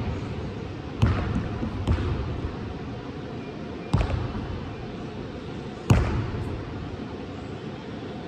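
Basketball bouncing on a gym floor four times at uneven intervals, about 1, 2, 4 and 6 seconds in, each thump echoing in the large hall.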